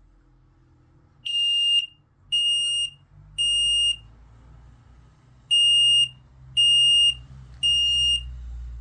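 Smoke alarm's piezo sounder beeping: six shrill, high-pitched beeps of about half a second each, in two groups of three with a longer pause between the groups.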